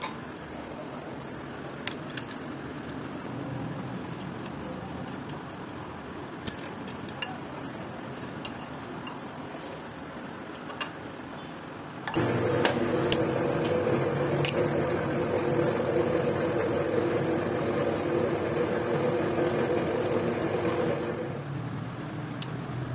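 A few light metal clinks of hand tools on metal over a low steady background. About twelve seconds in, a workshop machine starts up with a steady hum, runs for about nine seconds, then drops away.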